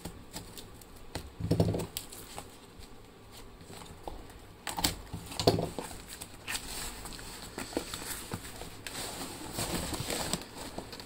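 Cardboard shipping carton being pulled open by hand: torn cardboard rustling, scraping and crinkling as a boxed product slides out. Two louder dull knocks, about a second and a half and five seconds in.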